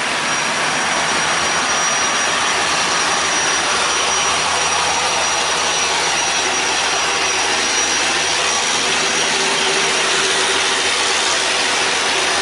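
Motorboat engine running steadily with loud rushing water, a dense continuous noise with a faint steady whine above it.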